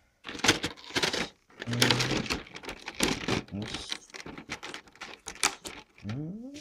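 Figure packaging being handled and pulled apart, crinkling and rustling in irregular bursts.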